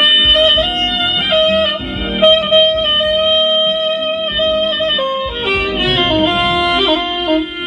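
Soprano saxophone playing a slow melody over guitar accompaniment: a long held note in the middle, then a phrase stepping down to a lower held note near the end.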